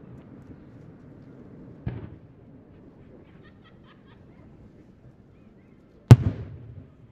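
Aerial firework shell bursting with one loud, sharp bang about six seconds in, followed by a short echoing tail. A smaller thud comes about two seconds in.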